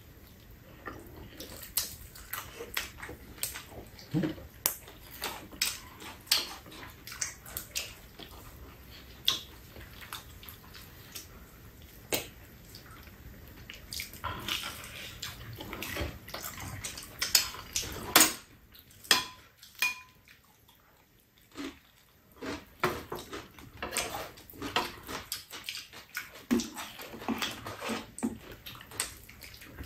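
Two people eating fried chicken: wet chewing and mouth sounds with scattered sharp clicks and taps of hands and utensils against a metal tray and a cardboard box. A short stretch past the middle goes nearly quiet.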